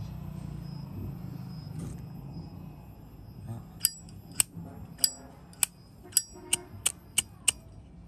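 1987 Zippo windproof lighter having its hinged lid flicked open and snapped shut again and again: about nine sharp metallic clinks with a bright ringing tail, starting about four seconds in and coming roughly two a second.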